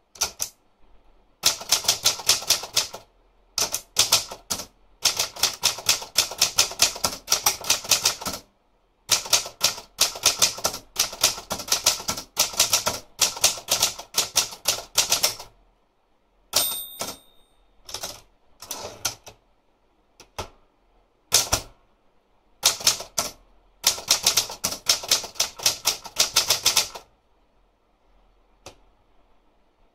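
Olympia Traveller De Luxe manual portable typewriter being typed on: quick runs of sharp keystroke clacks broken by short pauses. About halfway through, the end-of-line bell dings once. The typing stops a few seconds before the end.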